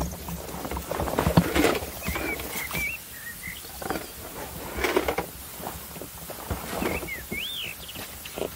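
Short bird chirps, a few quick rising-and-falling notes at a time, over irregular rustles and knocks from a spinning rod and reel being handled while a hooked fish is played.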